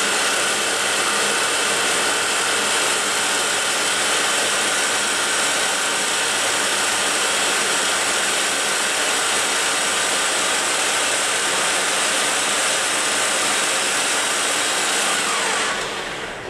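YCI Supermax LG-1768H engine lathe's spindle running at its top speed of 2,000 RPM, a loud, steady whir with a high whine. Near the end it winds down, the pitch falling as the spindle slows.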